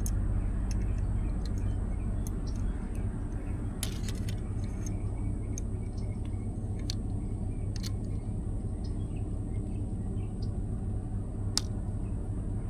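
Scattered small clicks and taps of plastic parts being handled as a float piece is fitted onto a fuel sending unit, with a sharper click near the end as it snaps into place, over a steady low hum.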